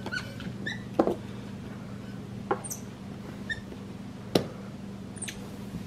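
A few sharp knocks of fruit against a countertop as a black-capped capuchin monkey handles a half lime, three in all, with a few faint short high squeaks between them over a steady low hum.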